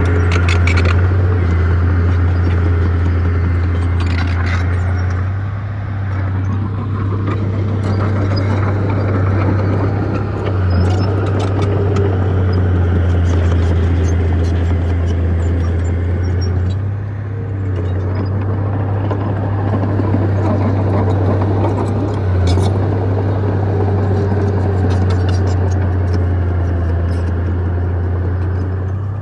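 Bulldozer's diesel engine working under load with a steady low drone, dipping briefly a few times as the load eases, with light clicks and clanks over it.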